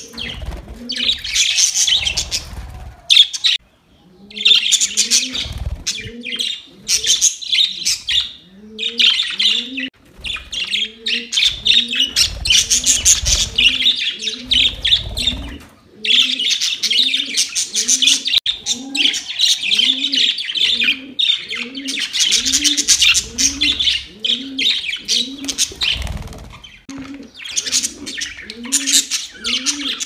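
A flock of budgerigars chattering and warbling almost without pause, in quick high chirps with a few short breaks. Behind them a low cooing call rises slightly and repeats about once a second.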